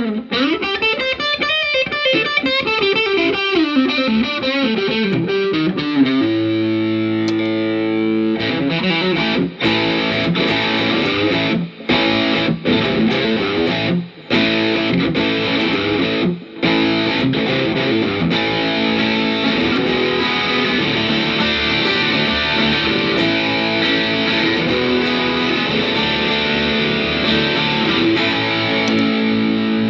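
A Gretsch G5420-TG hollowbody electric guitar played through the overdrive channel of a Peavey Classic 30 tube amp, giving distorted chords and lead lines. A chord is held ringing about six seconds in, and later a few brief stops break up the phrases.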